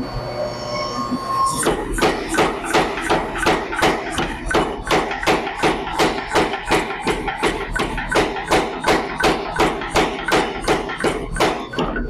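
Home-built mechanical power hammer running, its crank-driven ram striking the anvil in a steady rhythm of about three and a half blows a second. The blows start about a second and a half in, after a short pause.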